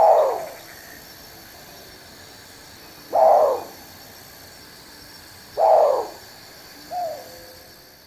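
Black bittern calling: three short notes, each sliding down in pitch, about two and a half seconds apart, then a shorter, fainter one.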